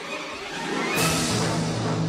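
Background music: a swell that rises to a sudden hit about a second in, then a held low note.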